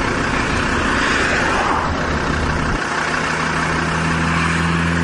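A vehicle engine running steadily under a rushing noise. A little under three seconds in, the low hum settles into a steadier, even note.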